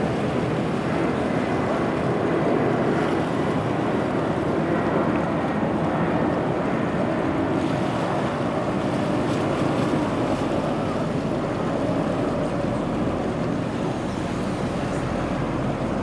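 Steady wash of wind and sea water, with wind on the microphone.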